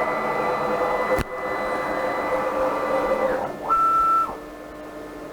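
6040 CNC router's stepper motors whining as the machine homes its axes: a steady whine for about three seconds with a sharp click about a second in, then a shorter, higher whine near four seconds.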